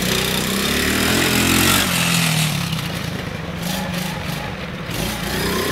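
ATV (quad bike) engine revving up over the first two seconds, then running on under load and easing off.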